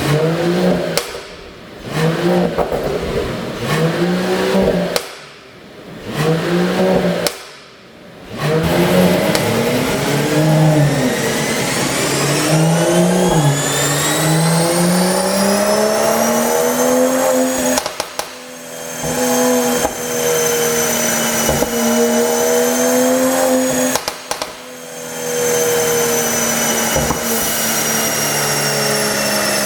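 Mercedes-AMG CLS53's turbocharged 3.0-litre inline-six, fitted with a pop-and-crackle exhaust tune. It revs in a few short blips with gaps between them, then climbs steadily in pitch for several seconds with a rising whine. It then holds high revs, and briefly lets off twice with sharp pops.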